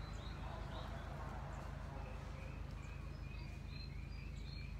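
Small birds chirping in the background, short high notes repeated again and again, over a steady low hum.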